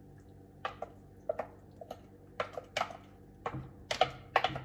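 Blender jar knocking and clinking against the gumbo pot while thick puréed greens are poured out of it into the pot: a string of irregular short knocks, busier and louder in the second half.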